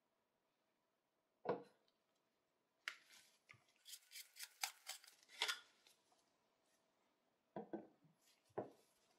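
Short gritty scraping strokes of an antique brass binocular's threaded tube being twisted and unscrewed, between soft knocks of the metal parts being handled and set down on a wooden table: one knock about a second and a half in, two more near the end.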